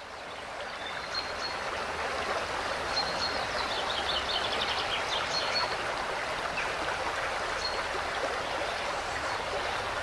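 Steady rushing of running water, like a stream, swelling in over the first couple of seconds. Short high bird chirps come and go through it, thickest in the middle.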